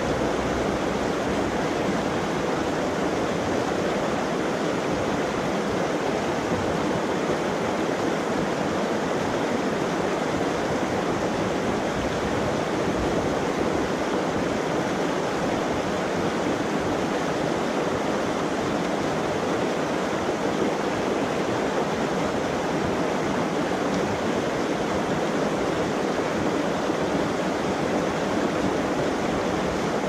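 Waterfall plunging into a pool: a steady, even rush of falling water.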